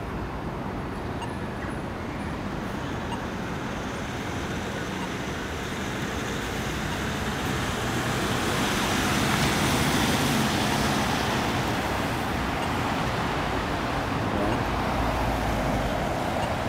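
Road traffic at a city intersection: cars driving through, loudest as vehicles pass about eight to eleven seconds in.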